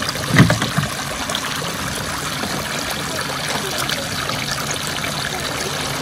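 Water from a toy water table's waterfall falling in many thin streams into the plastic basin, a steady trickling splash. A single knock sounds about half a second in.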